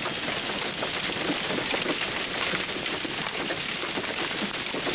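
Steady patter of rain falling after a hailstorm, many fine drops ticking at an even level.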